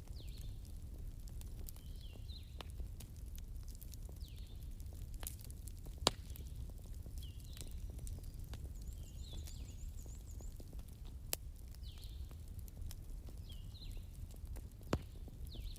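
Bonfire crackling: scattered sharp pops and snaps over a steady low rumble, with three louder pops about six, eleven and fifteen seconds in. Short high chirps recur every second or so in the background.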